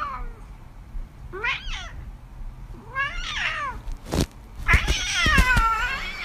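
A cat meowing four times, each call bending in pitch, the last one the longest and loudest. A few sharp knocks come in between, near the middle.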